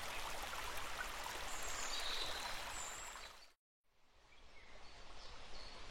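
Sound-effect ambience of a flowing stream, an even rushing hiss that fades and cuts to dead silence about three and a half seconds in. A fainter outdoor ambience with a few faint bird chirps follows.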